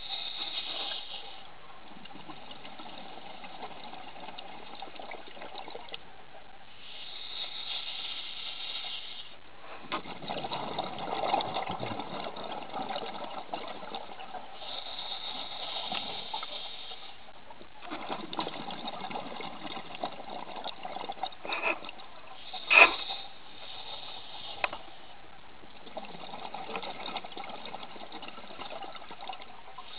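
A scuba diver breathing through a regulator underwater, in a slow cycle about every eight seconds: a short hiss on each breath in and a longer gurgle of exhaled bubbles. A sharp knock comes about two-thirds of the way through.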